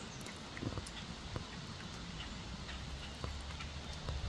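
American red squirrel gnawing dried corn kernels: a few short, sharp clicks and crunches scattered through, over a steady low rumble.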